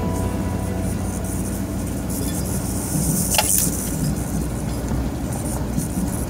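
Off-road vehicle driving slowly over a rough dirt track: a steady low rumble of engine and tyres on sand and gravel, with a single short sharp sound about three and a half seconds in.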